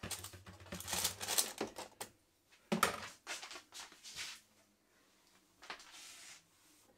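Metal spoon scraping and tapping oil-coated potato wedges out of a mixing bowl into an air fryer basket: a quick run of clatters and scrapes, a sharp knock about three seconds in, then a few softer knocks as the wedges are settled by hand.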